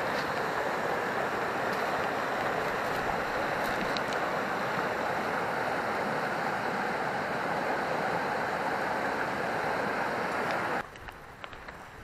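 A stream rushing steadily, cut off abruptly near the end, after which only a few faint knocks remain.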